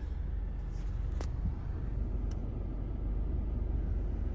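Car driving along slowly, a steady low rumble of engine and tyres, with a single sharp click about a second in.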